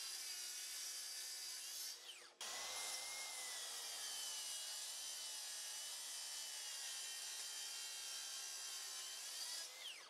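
Makita cordless track saw cutting 3/4-inch plywood along its guide rail: a steady motor whine with the blade in the wood. It breaks off for a moment about two seconds in, then runs on steadily, and winds down with a falling pitch near the end.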